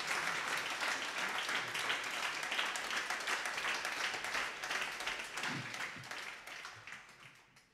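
Concert audience applauding, a dense patter of many hands clapping, fading out over the last two or three seconds.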